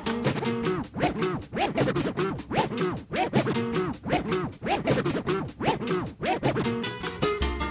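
Music track with turntable scratching: quick up-and-down pitch sweeps cut over a steady beat.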